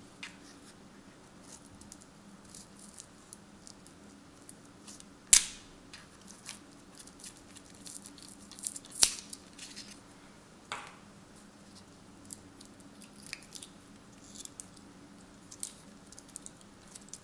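Light clicks and small scrapes from a pry tool worked under an HTC One M9 smartphone's main board as it is levered off its adhesive, with sharper clicks about five and nine seconds in.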